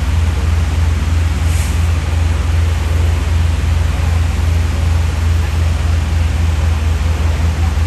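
Fire apparatus engines running at pump speed with a steady low rumble under a continuous rushing hiss of high-volume water streams.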